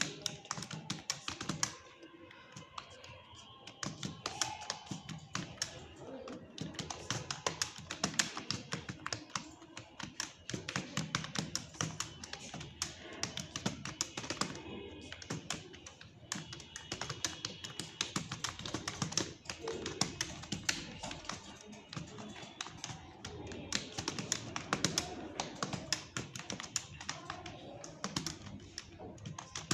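Fast, continuous typing on a computer keyboard: rapid, irregular keystrokes, several a second, with short pauses now and then.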